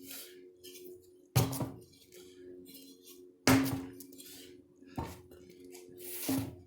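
A 25 lb sledgehammer striking heavily three times, about two seconds apart, over background music.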